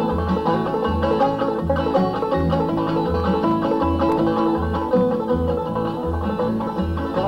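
Bluegrass music, an instrumental break between sung verses: banjo and guitar picking over a steady bass beat.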